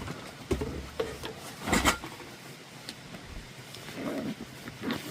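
A dog making a few short, breathy noises, the loudest about two seconds in.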